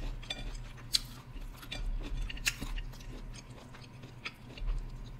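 Close-miked chewing of fried seafood, with scattered sharp little clicks from the mouth and from fingers picking food off the plate.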